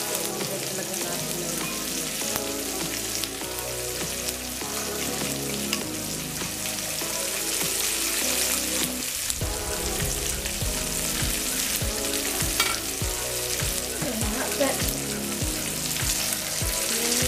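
Asparagus and chopped tomatoes sizzling in hot oil in a nonstick frying pan, with a steady frying hiss, stirred with a wooden spatula.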